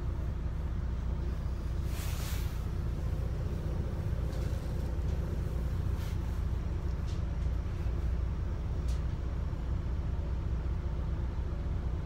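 Steady low rumble of a London bus's engine idling, heard from inside the bus while it stands at a red light. A brief hiss comes about two seconds in, and a few faint clicks follow later.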